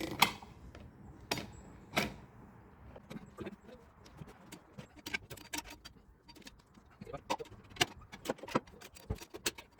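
Steel tire levers clicking and knocking against the rim protectors and wheel rim while a new motorcycle tire's bead is pried onto the rim: a few sharp knocks in the first two seconds, then a run of smaller clicks.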